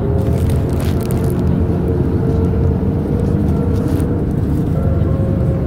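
Steady low rumble inside a moving vehicle, with faint music playing underneath and a few light handling clicks.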